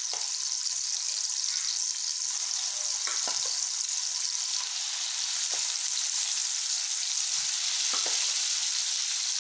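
Masala-coated fish pieces frying in hot oil in a pan: a steady, high sizzling hiss, with a few soft knocks while more pieces are added.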